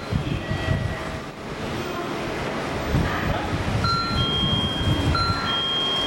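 An N700 Series Shinkansen train pulling out of the station, its running gear rumbling low and unevenly as it moves off. In the second half, steady high-pitched tones sound on and off in turn.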